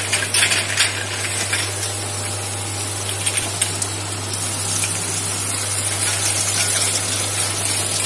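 Automatic bottle-washing line running: a steady machine hum under a constant hiss, with small glass bottles clinking against each other and the steel guide rails, the clinking busiest in the first couple of seconds.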